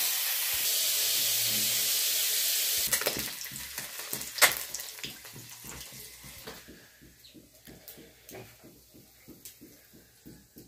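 Chicken fat sizzling in a hot iron kadhai. A steady hiss for about three seconds, then it breaks into scattered crackles and pops that die away.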